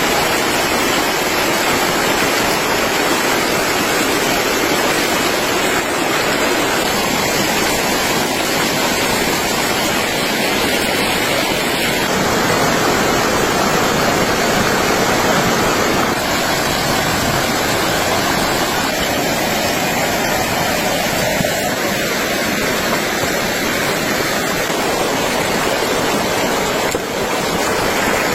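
Loud, steady rushing water noise, unbroken throughout.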